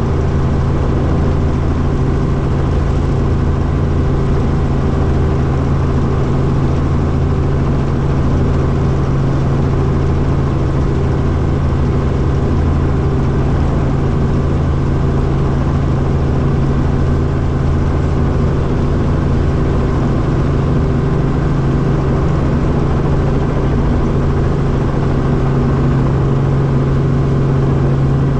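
Light helicopter's engine and rotor running steadily, heard from inside the cabin: a constant loud drone with a strong low hum.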